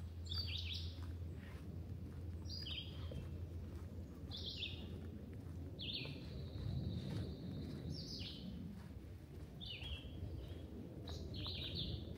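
A woodland bird calling repeatedly in short, downward-slurred notes every second or two, with one note held for a couple of seconds midway. A low steady rumble runs underneath.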